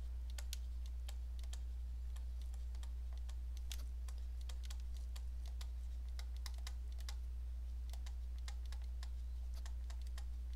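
Pen stylus tapping and scratching on a tablet while writing by hand, in irregular small clicks, over a steady low electrical hum.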